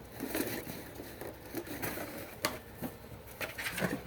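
Plastic fire-alarm parts, an L-series horn strobe and its mounting bracket, being handled and set down. Scattered light clicks and knocks, the sharpest about two and a half seconds in and a few more near the end.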